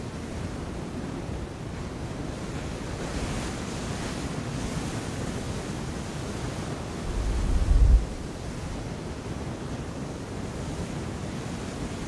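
Sea surf washing against rocky cliffs at low tide, a steady rush of waves. About seven seconds in, a low rumble swells for about a second and cuts off, the loudest moment.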